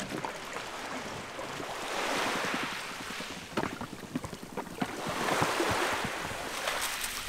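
Small waves washing up a pebble beach and splashing around an inflatable dinghy as it is paddled ashore, swelling twice, with a few sharp knocks.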